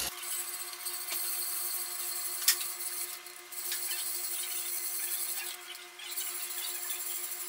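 Freshly roasted coffee beans swishing and rattling around a stainless steel pot as it is swirled to cool them, over a steady hum. The swishing eases briefly about three seconds in and again near six seconds.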